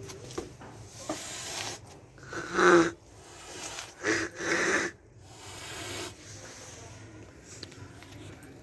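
A cat making a run of short breathy sounds, about four bursts of a second or less.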